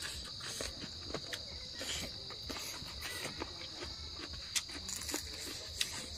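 A steady, high insect chorus, cricket-like, with scattered short clicks and smacks of chewing and eating roast chicken by hand.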